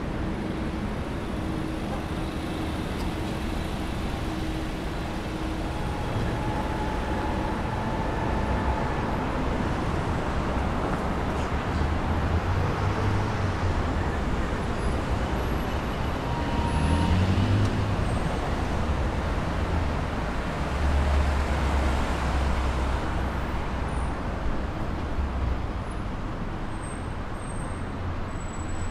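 City street traffic: cars passing with steady engine and tyre noise, swelling with a low engine rumble as vehicles go by around the middle of the stretch.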